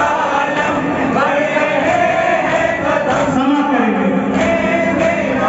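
Men chanting a noha, a Shia lament for Imam Hussain: a lead reciter sings into a microphone while a group of men's voices chant along with him.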